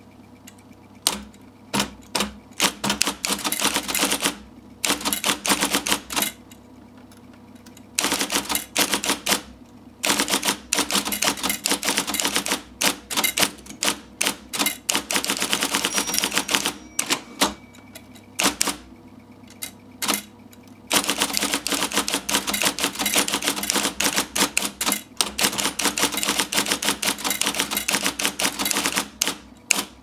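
IBM Correcting Selectric II electric typewriter typing fast and loud: rapid strikes of its golf-ball typing element in long runs, broken by a few short pauses. The steady hum of its motor runs beneath.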